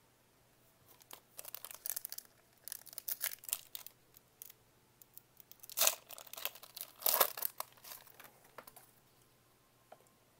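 Foil wrapper of a Donruss Optic basketball card pack crinkling and tearing as it is ripped open by hand. It comes as a run of crackles, with the loudest rips about six and seven seconds in.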